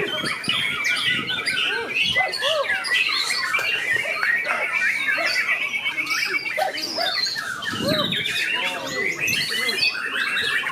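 Several white-rumped shamas (murai batu) singing at once in a song contest: a dense, unbroken chorus of overlapping fast whistles, trills and chatter.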